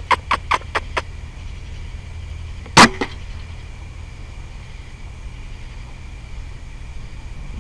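A .22 Benjamin Discovery PCP air rifle firing once, a loud sharp crack about three seconds in, followed closely by a fainter knock. Before it, in the first second, a quick run of about six short clicks, and a steady low hum underneath throughout.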